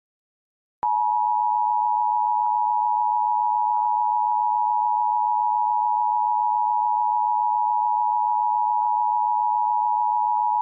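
Emergency Alert System two-tone attention signal: two steady pitches sounded together, starting about a second in and holding unchanged. It is the alert that announces an emergency broadcast message is about to follow.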